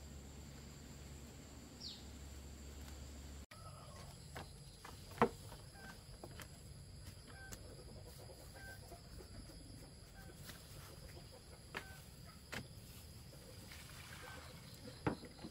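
Outdoor countryside ambience: a steady high insect drone with short, repeated chirps, and a few sharp knocks, the loudest about five seconds in.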